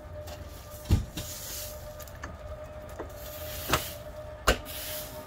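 RV auto-leveling system's jack motor running with a steady hum while the jacks extend. A few sharp knocks and clicks sound over it: a heavy knock about a second in, then two clicks near the end as the entry door latch is worked.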